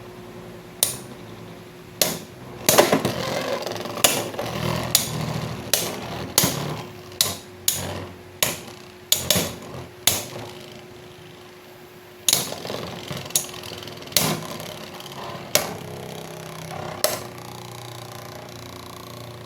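Beyblade X spinning tops battling in a plastic stadium: a run of sharp, irregular clacks as they collide, over a steady whirr of spinning. The hits come fast and dense in the first half, then fewer and further apart as the tops slow.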